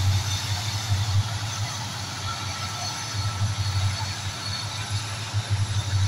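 Diesel locomotives hauling a passenger train slowly across a bridge, their engines making a steady low drone that swells and dips, over a constant hiss.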